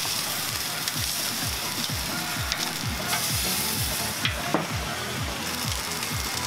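Chicken drumsticks sizzling steadily on the hot grate of a Weber Q gas grill over direct heat, with a few sharp clicks of metal tongs against the grate as the pieces are turned. A background music beat runs underneath.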